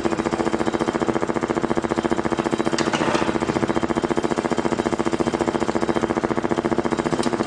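Steady, rapidly pulsing motor-like drone, with a brief high hiss about three seconds in and another near the end.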